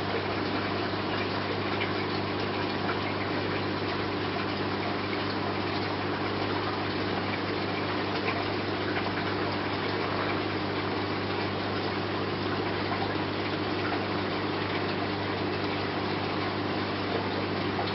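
Steady aquarium running noise: a constant low pump hum under an even rush of bubbling water from a stream of rising air bubbles.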